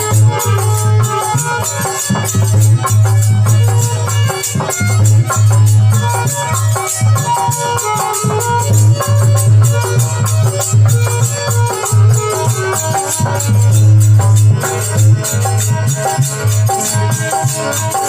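Instrumental interlude of a Rajasthani folk devotional song (bhajan): melodic instruments playing sustained notes over a steady low drone, with quick high percussion strokes keeping a continuous beat.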